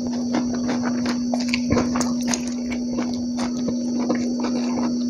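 Close-miked mouth sounds of a person eating by hand: chewing, wet smacks and clicks coming irregularly several times a second. A steady hum runs underneath.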